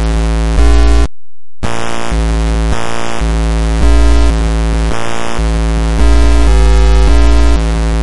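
Synthesized buzzing sound effect: loud, harsh electronic buzz tones that switch pitch and tone every half second or so, with a short silent break about a second in.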